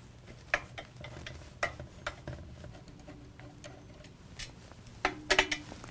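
Hand nut driver turning out the 5/16 hex-head screws that hold the fan motor to the aluminium stator: scattered light metallic clicks and ticks, with a quick cluster of louder clicks near the end.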